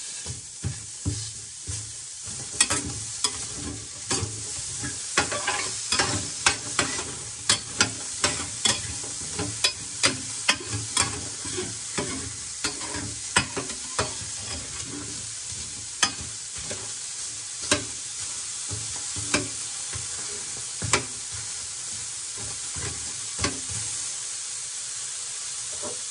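Chopped red onion and garlic sizzling in a dry stainless-steel Saladmaster electric skillet, cooked without any oil. A metal spoon stirs and scrapes against the pan in quick, frequent clicks that thin out in the second half.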